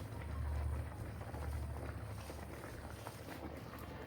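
Handheld steamer running with a low steady hum as the carpet is steamed to soften it, louder for the first couple of seconds and then fading.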